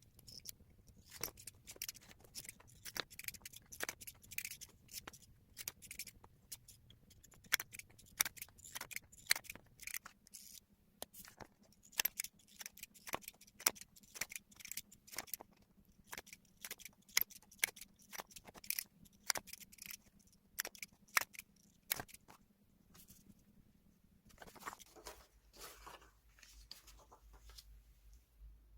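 Scissors snipping through magazine paper in many quick, crisp cuts, stopping about three-quarters of the way through; softer paper rustling follows near the end.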